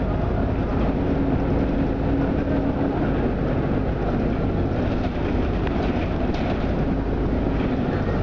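Jelcz 120M/2 LPG city bus under way, heard inside the passenger cabin: its engine and running gear give a steady low rumble with road noise. A low steady tone in the engine note fades out about three seconds in.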